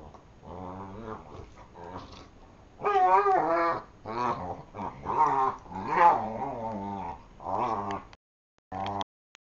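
Dogs growling at play: a run of drawn-out growls and whiny grumbles that waver up and down in pitch, loudest about three and six seconds in. The sound drops out for about half a second just after eight seconds.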